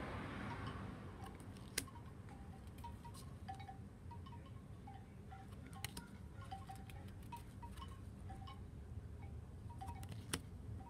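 Faint, scattered high tinkling notes, like small chimes, over a steady low rumble, with a few sharp clicks.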